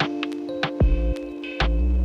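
Background music: an electronic track with held synth notes, a deep bass pulse and a regular beat of sharp percussion hits.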